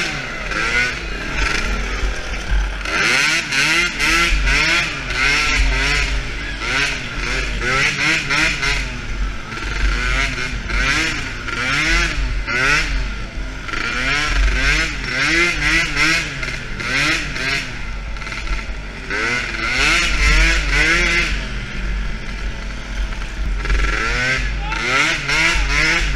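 The small engine of a DRR 50 youth quad, revving up and down over and over as the throttle is worked around the track, heard up close from the rider's helmet. Under it runs a low rumble.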